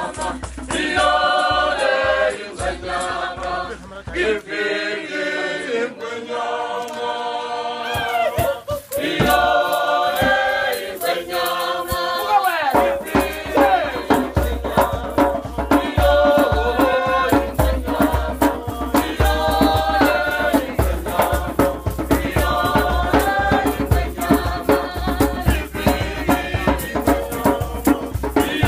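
A group singing a traditional African dance song with rattles; a steady drum beat comes in a little before halfway.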